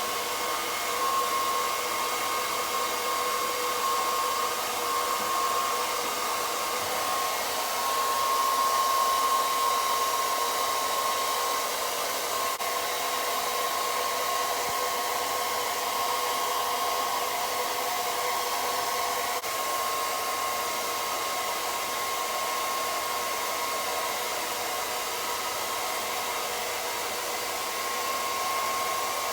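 Hair dryer blowing steadily while drying a large dog's fur, a constant rush of air with a steady whine in it.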